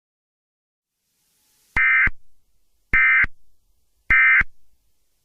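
Emergency Alert System SAME end-of-message data bursts: three identical short electronic warbling bursts, each about a third of a second, a little over a second apart. They mark the end of the alert message.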